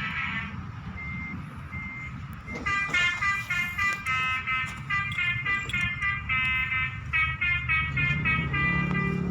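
Basuri telolet horn, a multi-trumpet musical bus horn, giving three short single-note beeps and then playing a quick staccato tune of chord-like blasts, several notes a second. A low rumble runs underneath and grows stronger near the end.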